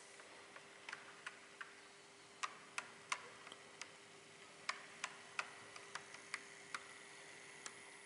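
Auscision HO-scale G-class model diesel locomotive running along layout track: irregular sharp clicks as its wheels cross the rail joints, over a faint steady hum, with a thin high motor whine that comes in about halfway through.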